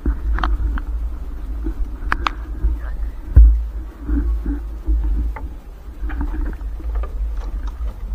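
Muffled rumbling and scraping as a triple (trammel) net is hauled by hand over the side of a small boat, with several knocks against the hull, the loudest about three and a half seconds in.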